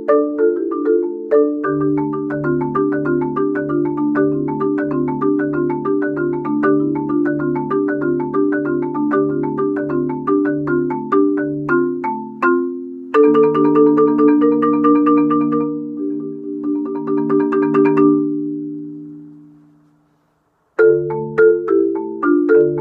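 Marimba played with four mallets: a fast, even stream of repeated notes over low bass notes, then, about thirteen seconds in, a denser sustained passage that rings and dies away into a short silence. The quick pattern starts again near the end.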